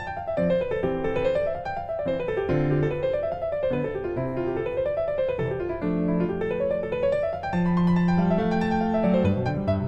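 Piano music, with rippling runs of notes that rise and fall over held low notes.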